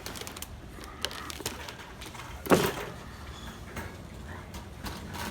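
Light clicks and knocks, with one heavy thump about halfway through, from a case of Coke cans being handled and set down in a shopping cart.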